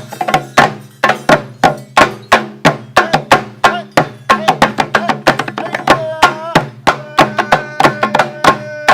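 Folk percussion music: loud, sharp drum strokes at a fast, even pace of about four to five a second over a low steady drone, with a held, wavering melodic tone joining about six seconds in.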